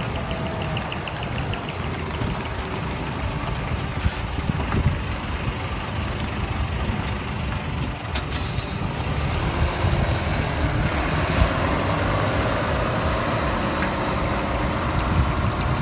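Heavy truck's diesel engine running as the truck pulls slowly away at low speed, with a brief hiss of air from its air brakes about eight seconds in.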